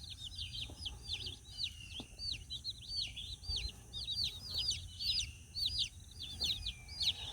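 Cornish Cross broiler chicks peeping without a break, a steady run of shrill high-pitched peeps, several a second.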